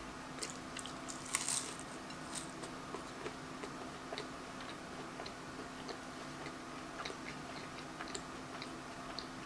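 Close-miked chewing of a bite of apple pie pizza's flaky pastry crust: soft, moist clicks and small crunches, a little louder about a second and a half in, over a faint steady hum.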